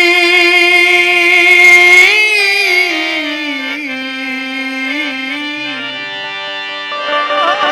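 A man singing a long drawn-out note in Bhojpuri dugola style over a harmonium. The note is held steady, then wavers and falls to a lower note about two to three seconds in. A fresh, louder note comes in near the end.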